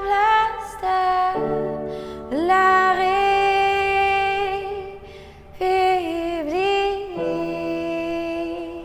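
A woman singing long held notes over grand piano chords, her voice sliding up into a note about two seconds in and dipping and wavering on a held note near the middle.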